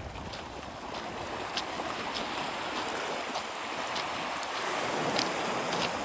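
Small lake waves washing onto a rocky beach, a steady wash that builds a little through the middle, with a few light clicks through it.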